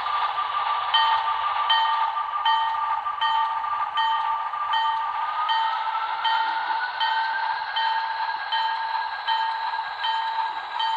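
Model diesel switcher's onboard sound ringing its bell, an even ding about every 0.7 s starting about a second in, over a steady high hum that rises in pitch about halfway through as the locomotive moves.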